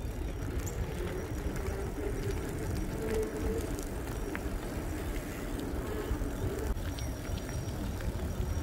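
A vehicle in motion: steady low rumble with a faint steady hum.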